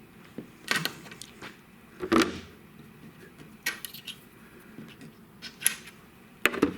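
A handful of sharp, irregularly spaced metallic clicks and knocks, the loudest about two seconds in, as a metal gauge is handled and set against the saw table.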